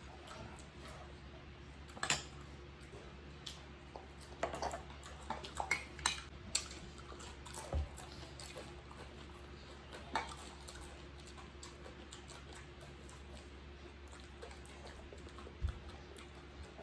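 Scattered light clinks of spoons against plates and bowls, with small eating sounds at a dinner table, over a steady low hum.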